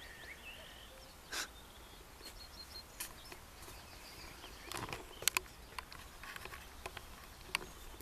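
Faint open-country ambience: a few short small-bird chirps and brief high notes in the first few seconds, with scattered sharp clicks and rustles, clustered around the middle, from handling the camera while walking.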